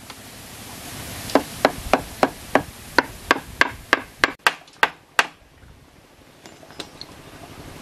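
A hand tool striking wood in a run of about a dozen sharp knocks, roughly three a second, that stop about five seconds in.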